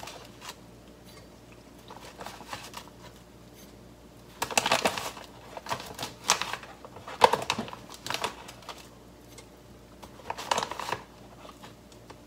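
Plastic bag of brown sugar rustling and crinkling as a spoon scoops sugar out of it, in several short bursts with quiet between.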